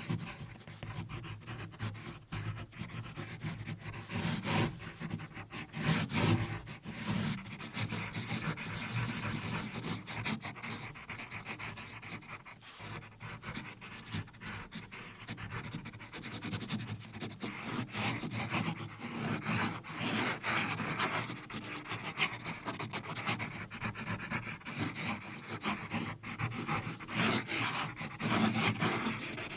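Continuous close-up scratching and rubbing, with many small clicks running through it.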